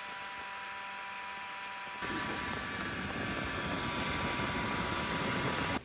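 Handheld gas burner torch running with a steady roaring hiss, louder from about two seconds in.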